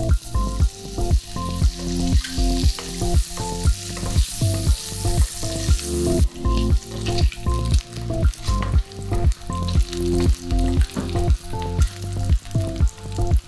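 Boiled eggs sizzling in hot spiced oil in a frying pan as they are turned with a wooden spatula. The sizzle is strongest from about two seconds in and eases after about six seconds. Louder background music with a steady beat plays throughout.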